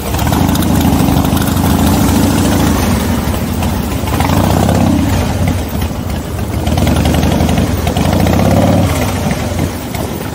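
V-twin motorcycle engines running at low road speed, rising and falling in pitch three times as the bikes pull away and change gear.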